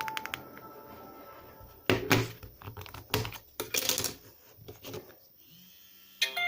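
A smartphone being handled: a few sharp clicks, then three short bursts of tapping and rubbing about a second apart. A melodic ringtone starts right at the end.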